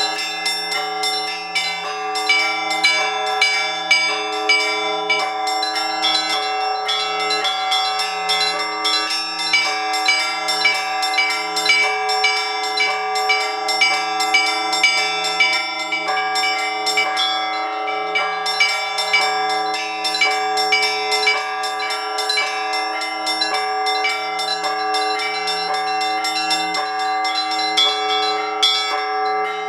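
Orthodox church bells rung by a bell-ringer. Small treble bells chime in fast, dense strokes over the ringing middle bells, while a deep bell sounds in a steady, regular pulse.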